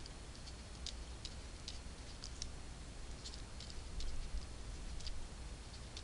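Light, irregular ticks of a stylus tapping and scraping on a drawing tablet as words are handwritten, about two or three a second, over a low steady hum.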